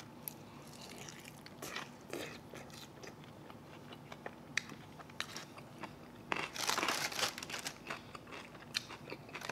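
Close-miked mouth sounds of eating a sticky, sauced chicken wing: scattered wet smacks and small crunches of chewing, with a louder, longer stretch of noise about six and a half seconds in.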